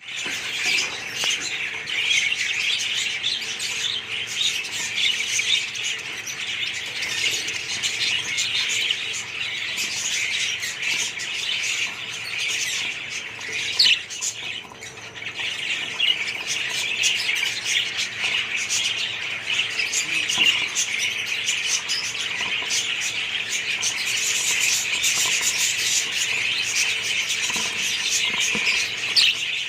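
A colony of budgerigars chattering: many birds chirping and squawking at once in a dense, continuous din.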